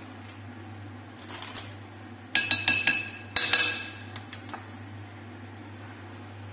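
A spoon clinks against a glass mixing bowl in two quick bursts of ringing taps about two and a half seconds in, as a dollop of cream is knocked off the spoon into the bowl.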